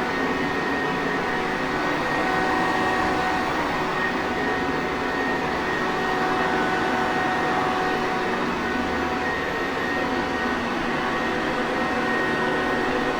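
Sanitaire upright vacuum cleaner running steadily: an even whooshing motor noise with a faint constant whine.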